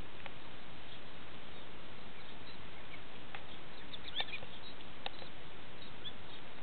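A few brief, high chirps from ducks, most of them around four to five seconds in, over a steady hiss.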